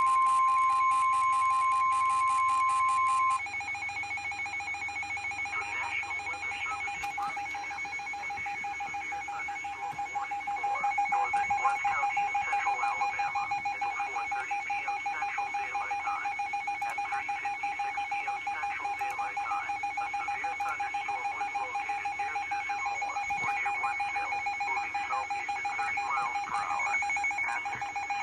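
A steady single-pitch emergency alert tone, the weather-radio type, cuts off about three seconds in. An alarm keeps ringing throughout, a steady tone with a rapid pulsing above it, getting busier and a little louder from about ten seconds in.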